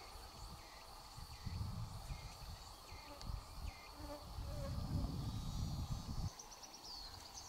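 Insects droning steadily on one high note, with a run of short repeated chirps in the first half. A low rumble comes and goes in the middle.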